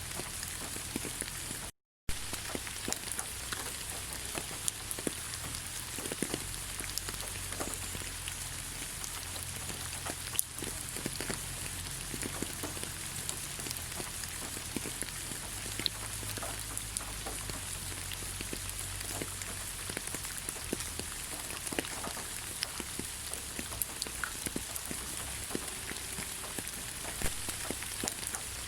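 Steady rain falling on leaves: a continuous hiss dotted with many separate drip taps. The sound drops out to silence for a moment about two seconds in.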